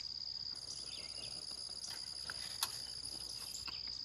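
Steady, high-pitched trilling of an insect chorus, with a second, higher trill joining about half a second in and dropping out near the end. A faint click sounds a little past the middle.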